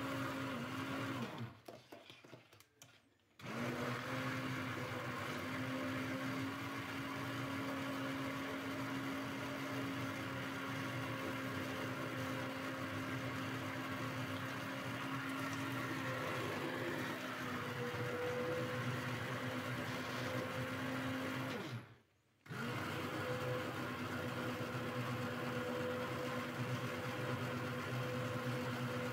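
Hand blender motor running steadily as it purees potato soup in a steel pot. It is switched off briefly about two seconds in, and again about three quarters of the way through, then started again each time.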